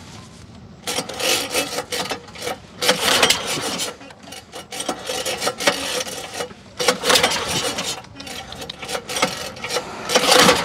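Pull-start cord of a small gasoline boat engine being yanked again and again, a rasping stroke about every second and a half as the engine turns over without catching: the engine is flooded with fuel.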